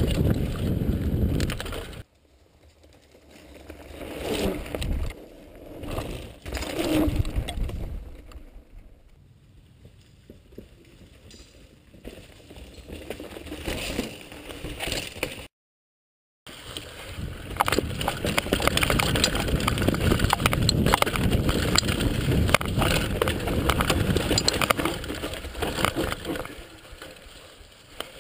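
Mountain bike ridden over a leaf-covered dirt trail, heard close from a camera on the rider: tyre noise and the rattle of the bike over bumps. A few seconds in it drops to quieter trail sound with a few passing swells, cuts out for about a second, then the loud, continuous riding rattle returns.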